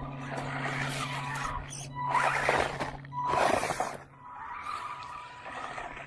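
HAIBOXING 18859 1:18 electric RC monster truck driving in bursts of throttle: its motor whines and its tyres scrabble, with about three louder surges around the middle.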